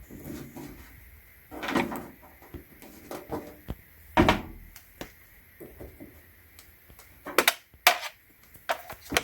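Handling noises: a few knocks and sharp clicks at uneven intervals, the loudest about four seconds in, with a quick run of clicks near the end.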